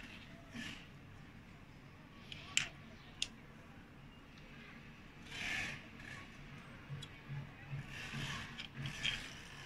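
Small handling noises from wiring and plastic parts being handled: rubbing and scraping in short bursts, with two sharp clicks a little over halfway through the first third.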